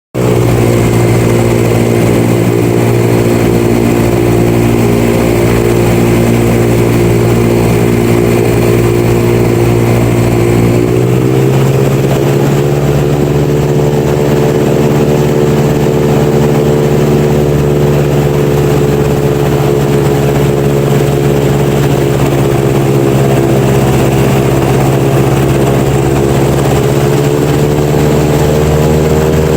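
Airboat engine and air propeller running loud and steady, the pitch stepping up about eleven seconds in as the boat speeds up, and rising a little again near the end.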